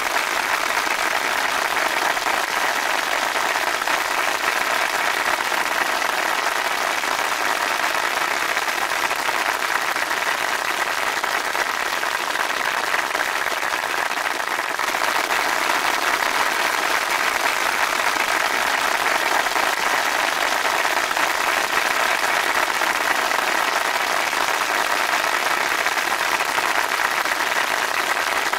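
Crowd applauding steadily, with a brief dip about halfway through before it picks up again.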